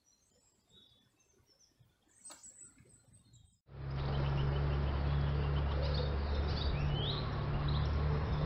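Near silence, then outdoor ambience cutting in about a third of the way through: birds chirping over a steady low rumble.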